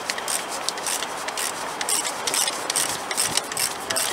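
Ratchet spanner working a bolt on the bus's engine mount: quick, uneven rasping strokes, about three a second.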